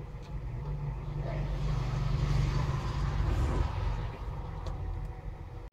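A low, steady rumble that swells over the first couple of seconds and eases off toward the end.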